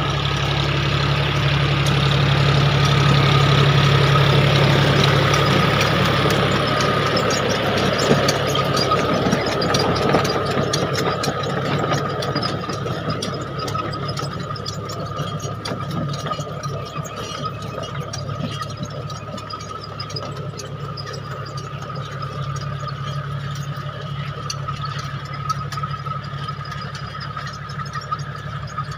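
A John Deere tractor's diesel engine running steadily under load while it drives a rotavator through dry soil, with a steady high whine over the engine note. Loudest in the first few seconds as the tractor passes close, it fades as the tractor moves away and grows louder again near the end as it comes back.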